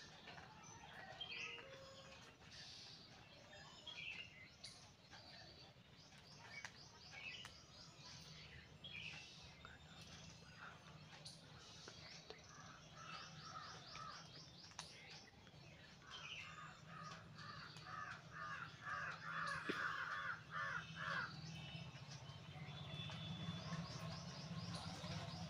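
Crows cawing in the background, with a quick run of repeated caws about two-thirds of the way through, and small birds chirping. A low hum grows louder near the end.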